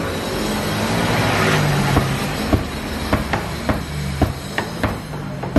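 Cleaver chopping roast duck on a thick round wooden chopping block: a run of about nine sharp chops starting about two seconds in, some in quick pairs, over steady street traffic noise.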